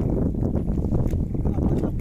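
Steady low rumble of wind buffeting the microphone and choppy water around a small fishing boat under way at sea, with a few faint knocks.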